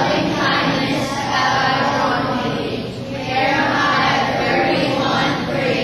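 A large group of children reciting a Bible memory verse aloud in unison, phrase by phrase.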